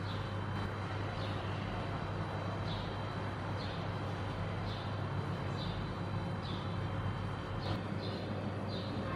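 Steady low hum of outdoor background noise, with short high chirps from a small bird about once a second.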